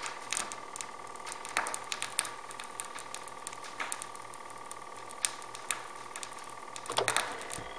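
Vinyl record surface noise from the stylus of a Technics SL-BD20 turntable tracking the groove: scattered clicks and pops over a faint steady tone, with a louder cluster of crackles about seven seconds in.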